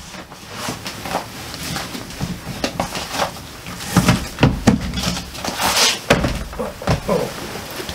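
LP record jackets being handled and sorted: irregular cardboard slides, rustles and light taps as the next album is picked out.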